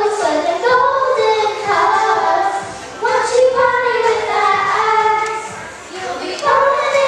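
Three young girls singing together into handheld microphones, their voices amplified. The notes are held, with short breaks about three and six seconds in.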